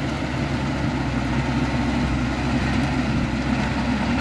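Heavy diesel engine of a road-building machine running steadily at a constant pitch.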